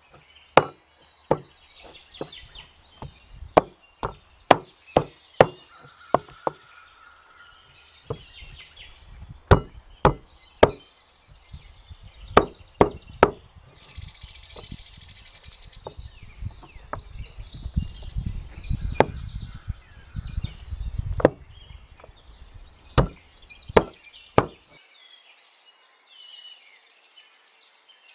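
Meat cleaver chopping raw chicken thighs on a wooden cutting board: sharp, irregular chops, thick at first and sparser later, stopping near the end. Birds chirp throughout.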